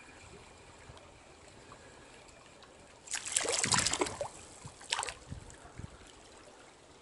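Steady low rush of stream water, broken about three seconds in by a loud noisy burst lasting about a second, and a shorter sharp burst near five seconds.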